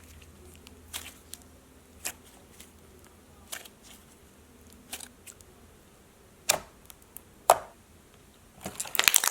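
Thick putty-like slime being pressed and played with by hand, giving sharp pops and clicks about once a second, then a quick flurry of clicks near the end.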